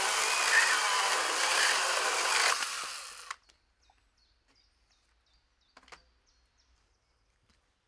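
Makita DUC101 18V cordless pruning saw cutting through wood, its chain running steadily, then winding down and stopping about three seconds in. A few faint clicks follow.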